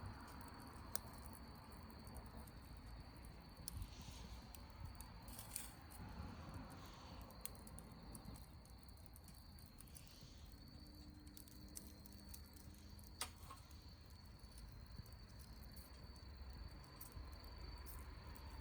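Wood campfire crackling faintly, with scattered sharp pops and snaps.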